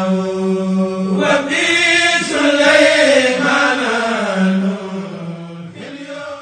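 Khassida, an Arabic Sufi devotional poem, chanted: a long held note, then a winding melodic line, then another held note. The chanting fades out near the end.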